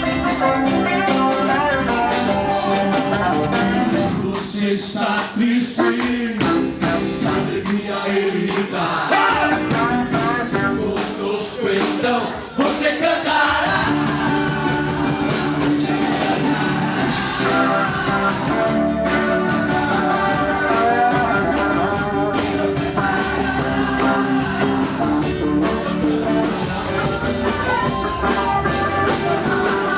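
A rock band plays with electric guitar, bass and drums and a lead vocal. About four seconds in, the low end thins out, and the full band comes back in about thirteen seconds in.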